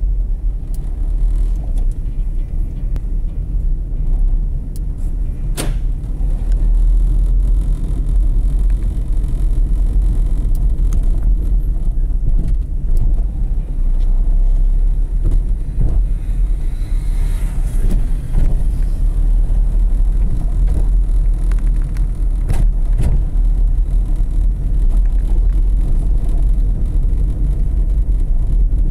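Steady low rumble of a vehicle driving along town streets, with a sharp click about six seconds in and a few fainter ones later.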